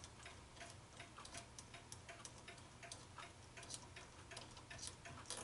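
Faint, even ticking, about three ticks a second, over a low steady hum.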